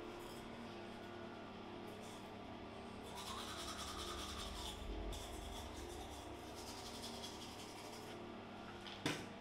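Manual toothbrush scrubbing teeth in rapid back-and-forth strokes, loudest from about three to six seconds in. A single sharp click comes near the end.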